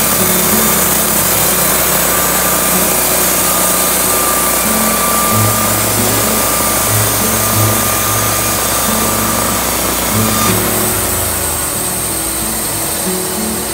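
Ritlee Rhino 700 portable band sawmill running, its engine-driven band blade cutting through a log as the head is pushed along: a loud, steady mechanical noise. About ten and a half seconds in, its low drone drops away and the sound thins.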